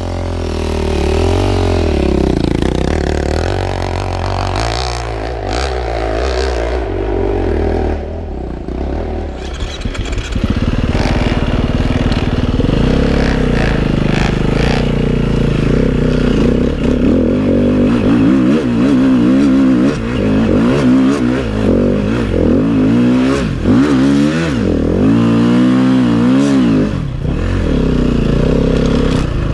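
Enduro dirt bike engine revving up and down as it is ridden off-road, the throttle opened and closed again and again. It eases off briefly about eight seconds in, then the revs swing up and down in quick succession through the second half.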